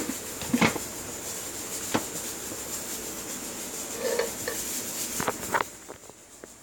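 Lid of an electric pressure cooker being set on and closed: several separate light knocks and clinks of the lid against the pot.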